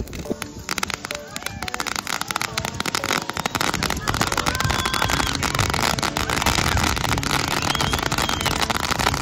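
Ground-set fireworks going off together: a dense, continuous crackling of many rapid pops as they shower sparks, thickening about half a second in.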